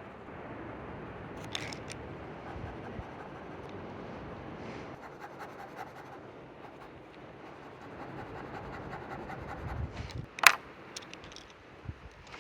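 Sketching materials handled outdoors: faint scratching and small clicks over a steady wind-like outdoor noise, with one sharp click about ten seconds in.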